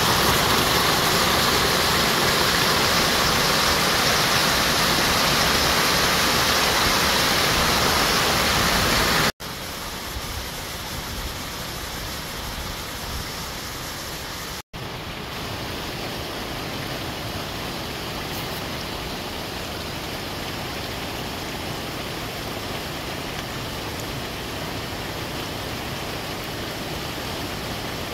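Mountain stream and small waterfall rushing over rocks: a steady, even roar of falling water. About nine seconds in it cuts abruptly to a quieter, more distant rush, with another brief dropout a few seconds later.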